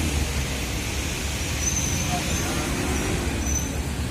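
Diesel engines of light trucks running slowly in low gear on a climb, a steady low rumble without revving.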